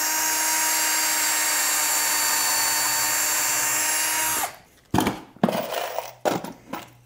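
Power drill with a countersink pilot bit running at a steady speed as it bores a pilot hole through a wooden gunwale block, then winding down and stopping about four and a half seconds in. A few knocks follow.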